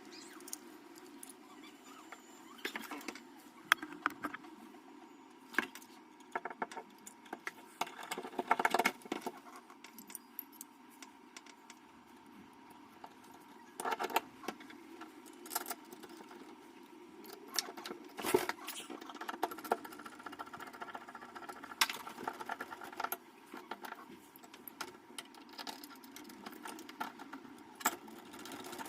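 Irregular clicks, clinks and knocks of metal door-lock hardware being handled and fitted into a door, with a short rattling cluster about a third of the way in, over a steady low hum.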